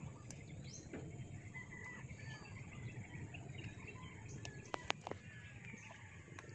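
Faint outdoor ambience of small birds chirping and insects over a low background hiss, with a few sharp clicks about five seconds in.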